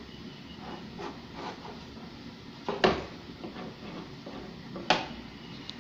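Tuna patties sizzling steadily in oil in a frying pan, with light rubbing and tapping on a cutting board and two sharper knocks, about three and five seconds in.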